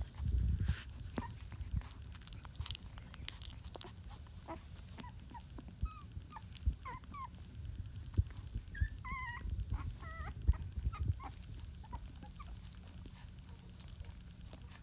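Rottweiler puppies about twenty days old giving short high squeaks and whimpers, thickest around the middle, over a low rumble of fur and handling rubbing near the microphone.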